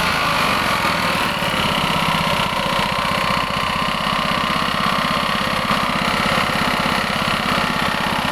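Vertical pellet mill machine running, its engine giving a steady, rapid, even pulsing.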